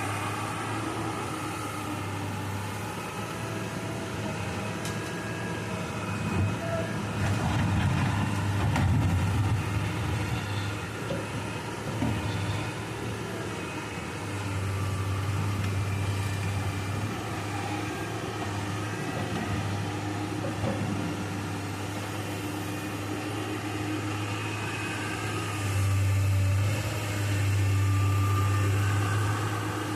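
Excavator's diesel engine running steadily, swelling louder for a few seconds about a quarter of the way in and again near the end as it takes hydraulic load, with a few knocks during the first louder stretch.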